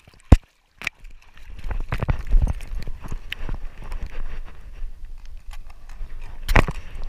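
Knocks, bumps and rubbing from a GoPro Hero4 Silver strapped to a dog's chest, its stretchy elastic harness letting the camera swing and jostle as the dog moves. A sharp click comes shortly after the start, then a moment of near silence, then a run of irregular knocks with a louder one near the end.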